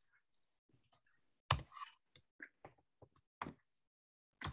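Computer keyboard keys being pressed one at a time: about eight separate sharp clicks spread over a few seconds, the loudest about a second and a half in.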